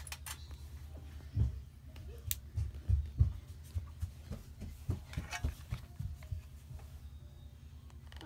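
Hands pressing and tucking fabric over a padded dog bed: soft low thumps and cloth rustling, with a sharp click about two seconds in. The thumps bunch together in the middle and die away after about six seconds.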